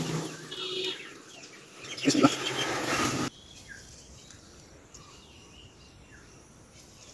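A chicken clucking and calling, loudest about two seconds in, then cutting off suddenly; only faint outdoor ambience follows.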